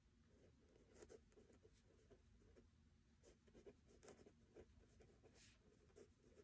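Faint scratching of a pen writing on notebook paper, in many short irregular strokes.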